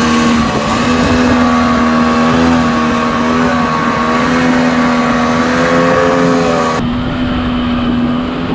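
Outboard motor of a river boat running steadily at an even pitch.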